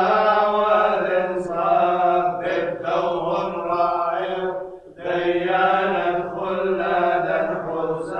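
Chanted vocal music: a voice holding long, slowly moving phrases over a steady low note, with a short break between phrases about five seconds in.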